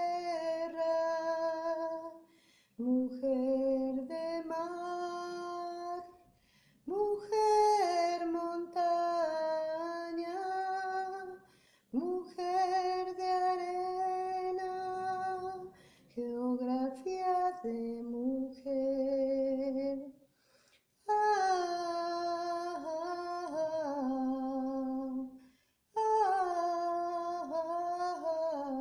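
A woman singing a slow song in Spanish, unaccompanied, in about seven long-held phrases of a few seconds each, separated by short silences.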